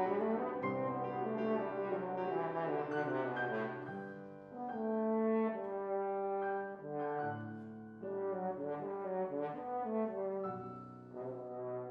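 French horn and piano playing a low-horn recital piece: the horn holds sustained notes in its low range and moves to a new pitch every second or so.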